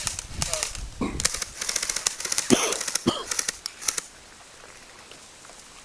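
Airsoft guns firing in rapid rattling bursts for about four seconds, then stopping, with a short shout among the shots.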